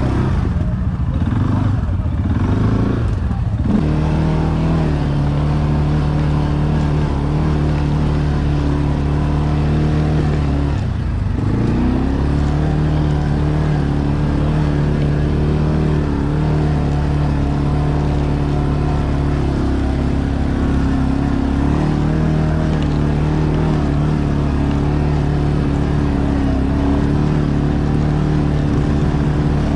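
ATV engine running steadily under way. The throttle eases and picks back up in the first few seconds, and again about eleven seconds in.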